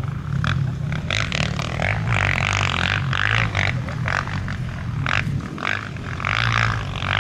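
Dirt bike engine running as the motorcycle rides through soft sand, a steady low drone with irregular rises and falls in its higher tones.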